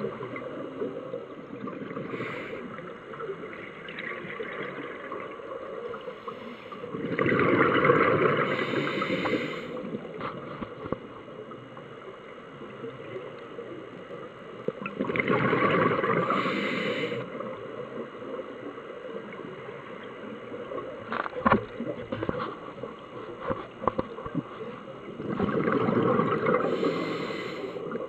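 Scuba regulator breathing heard underwater: three bursts of exhaled bubbles, about eight to nine seconds apart, each bubbling for two to three seconds, with a quieter hiss and scattered clicks between them.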